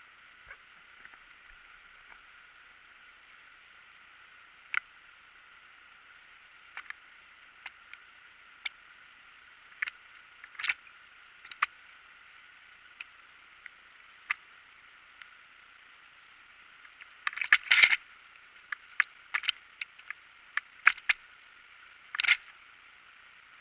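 Steady, faint rush of water falling over the weir, heard thin and narrow as if through a small microphone, broken by sharp irregular clicks and crackles, the loudest a dense cluster about three-quarters of the way through.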